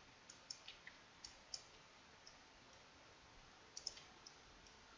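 Faint computer mouse clicks: about a dozen short, sharp clicks at irregular intervals, several in quick pairs, over a low background hiss.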